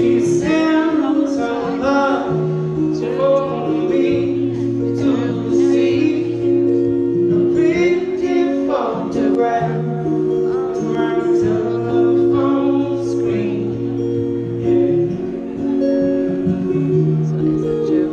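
A male singer performing a song live to his own acoustic guitar, the sung melody carried over steady held guitar notes.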